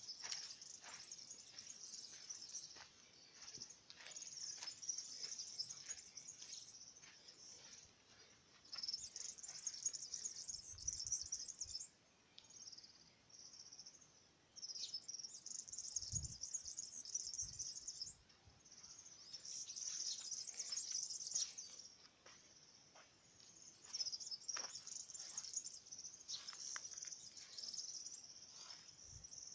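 Insects chirping in a high-pitched chorus that swells and drops away in bouts of a few seconds, with scattered short bird chirps.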